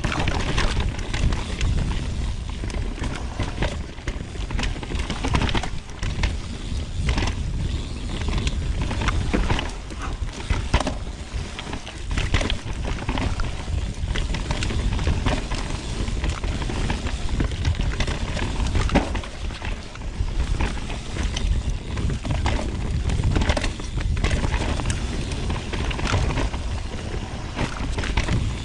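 Mountain bike riding fast down a dirt trail: a steady low rumble with many sharp rattles and knocks as the bike runs over rough ground.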